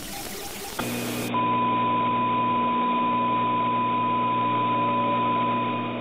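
Harsh broadcast static for under a second, then a muffled steady hum. About a second in, a steady high-pitched test tone sounds over the hum and holds until it fades near the end: the reference tone that goes with colour bars when a station's signal drops off the air.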